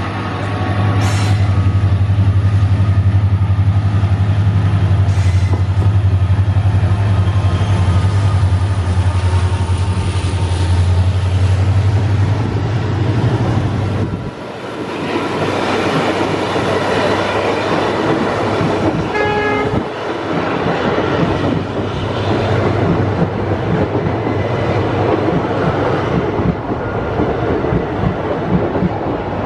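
WDP4D diesel-electric locomotive's EMD 16-710 engine running under power as it passes, a loud steady deep drone. About halfway through, passenger coaches roll past close by: a dense rushing rattle with clickety-clack of wheels over rail joints.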